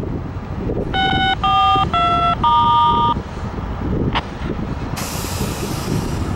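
A horn sounds four short notes in quick succession, each a different pitch, over a steady low rumble of passing traffic and rail. A sharp click and a brief hiss follow near the end.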